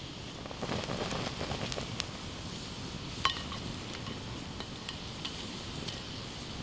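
Metal cookware clinking, with a ringing clink about three seconds in and scattered lighter taps, over a steady sizzling and crackling background.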